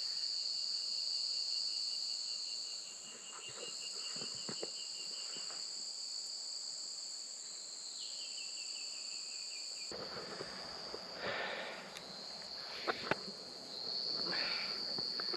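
A steady, high-pitched insect chorus, with a faster pulsing trill that comes and goes. About two-thirds of the way through, the highest part of the chorus drops away and a low rumble joins in, with a few light knocks.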